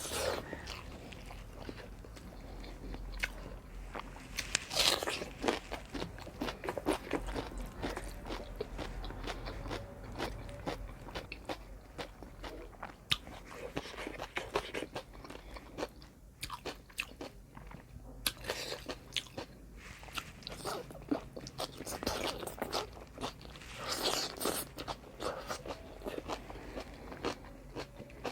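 Close-up eating sounds: a person biting and chewing food, with repeated crunching and wet mouth clicks, louder bursts about five seconds in and again near the end.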